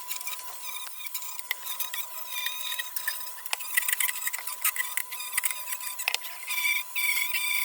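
Small rotary tool with a wire wheel scrubbing rust and grime off small steel heater parts: a steady thin whine with scratchy grinding and irregular sharp clicks as the wheel catches the metal.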